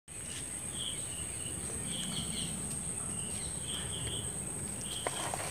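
Steady high-pitched insect drone with short chirps repeating every half second or so over it, and a faint click about five seconds in.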